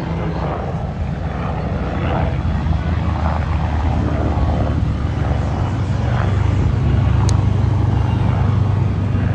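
Red Bull MBB Bo 105 helicopter flying aerobatics: a steady low rotor and turbine drone that grows louder about six seconds in.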